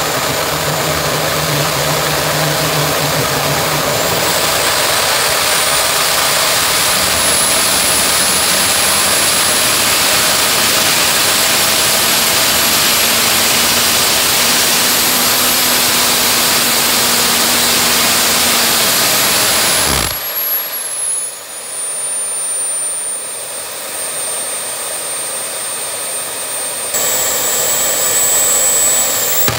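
Small gas-turbine jet engine of a home-built jet motorcycle running loudly, its high whine climbing in pitch over several seconds as it spools up, then holding. About twenty seconds in the low rushing noise cuts off suddenly and the whine drops a little in pitch, and the fuller sound returns near the end.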